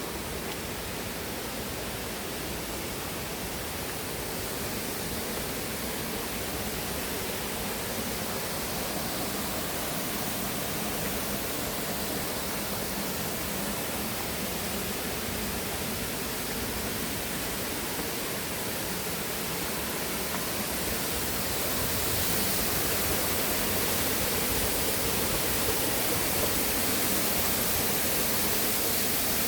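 Steady rushing of flowing river water, a little louder and hissier about two-thirds of the way through.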